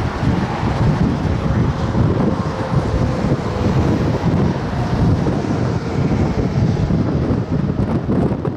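Strong wind buffeting the microphone in a loud, gusty rush of noise.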